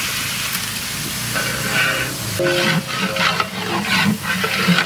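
Oil and masala sizzling in a large biryani pot as sliced tomatoes are tipped in. A perforated metal ladle stirs and scrapes through the pot in a series of short strokes from about halfway through.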